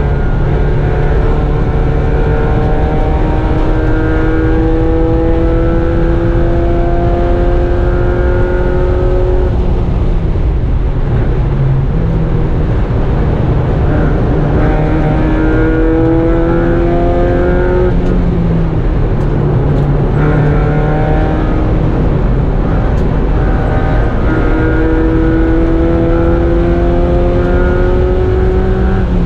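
Mazda Miata race car's four-cylinder engine heard from inside the cabin, pulling hard with its pitch climbing slowly in long stretches and dropping back about 10, 18 and 24 seconds in, over steady road and wind noise.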